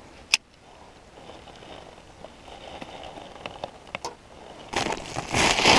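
Handling noise while fishing tackle is rigged: a single sharp click shortly after the start, a few faint ticks, then loud rustling and crinkling near the end.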